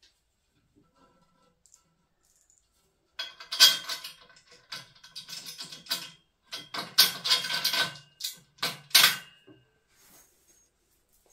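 Metal clicking and rattling as a bolt is fitted through the joint between the upper section and the pillar of a black metal storage rack. The sound comes in two runs of about three seconds each, starting about three seconds in.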